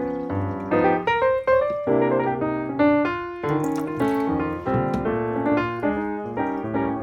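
Background piano music: notes struck one after another and left to ring, with changing chords.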